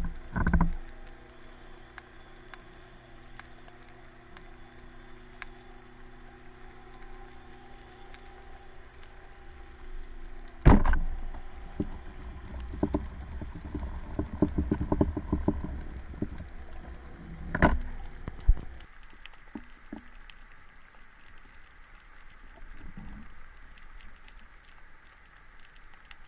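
Underwater: a speargun fires with one sharp snap about eleven seconds in, followed by several seconds of clicking and rattling as the shaft and line work among the rocks, and another sharp knock a few seconds later. A steady low hum underlies it and stops abruptly shortly after the knock.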